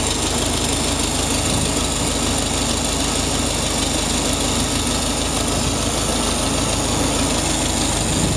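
1949 Farmall Super A tractor's four-cylinder gasoline engine running steadily at a constant speed. It runs evenly, with no odd noises.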